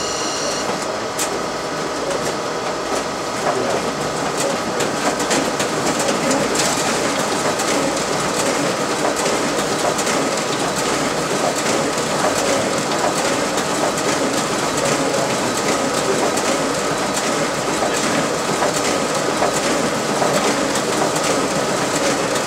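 RISO 9050 printer running a print job: a steady, rapid clatter of sheets feeding through and stacking in the finisher, over a steady whine from the machine.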